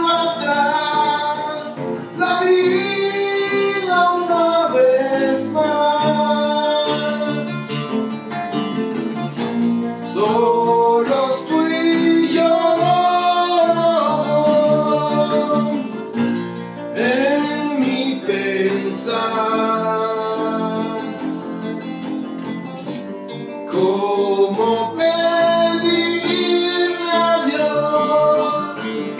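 A male voice singing a Spanish-language song over two acoustic guitars, one of them a nylon-string classical guitar. The song dips softer about two-thirds of the way through, then builds back up.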